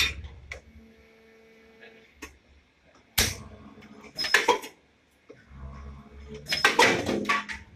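Injection moulding machine running through its cycle: a steady hydraulic hum, broken by three bursts of sharp metallic clunks and clatter from the mould and platen, about three seconds in, four and a half seconds in, and near the end.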